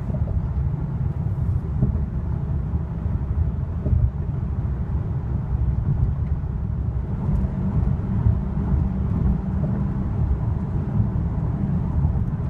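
Steady low road rumble from tyres and drivetrain heard inside the cabin of a 2015 Hyundai Equus cruising on the road.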